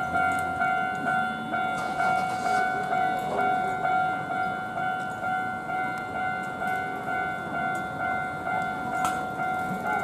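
Japanese railway level-crossing warning bell ringing in a fast, even, repeating ding-ding rhythm, the signal that the crossing is closed for an approaching train.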